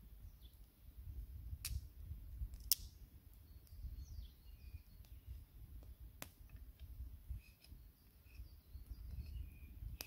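Knife whittling a wooden stick by hand, with a few sharp clicks, the loudest just under three seconds in, over faint bird chirps and a low rumble.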